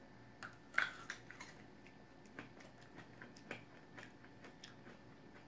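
Two people biting into small plums and chewing them: a run of faint, irregular clicks, the loudest about a second in.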